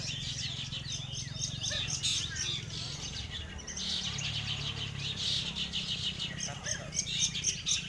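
Many long-tailed shrikes (cendet) singing and chattering at once, a dense stream of rapid short chirps as at a songbird contest, over a steady low hum.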